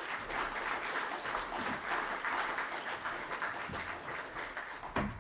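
Audience applauding: many hands clapping together, thinning out near the end, with one sharper knock just before it fades.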